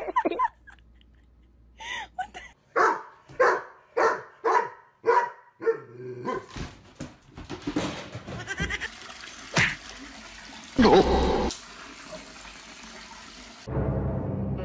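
A pet animal calling over and over, about two short calls a second, followed by a noisy stretch with one loud burst. Music starts near the end.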